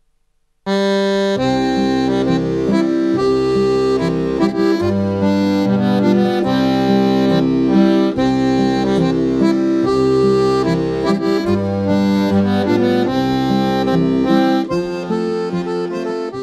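Instrumental music with held chords over a bass line that changes about once a second, starting suddenly just under a second in and growing softer near the end.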